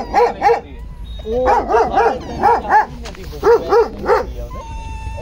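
Puppies yapping: repeated short, high-pitched barks coming in quick runs of two to four.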